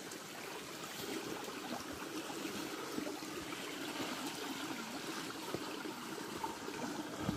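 Small stream trickling and babbling over rocks, a steady even water sound.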